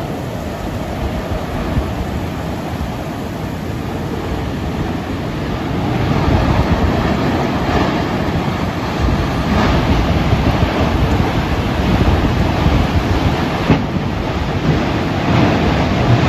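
Tornado wind and heavy rain making a dense, steady rushing noise, the train-like sound of a tornado passing close, growing louder about six seconds in.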